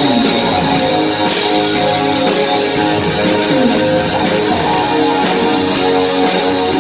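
A new wave band playing live, with guitar over a steady beat and sustained pitched notes.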